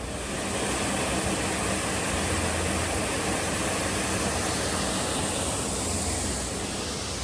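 Steady rushing noise that starts suddenly and eases off near the end.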